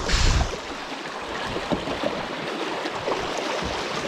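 Fast creek water rushing and gurgling through a riffle around a drifting kayak. A brief low rumble comes right at the start.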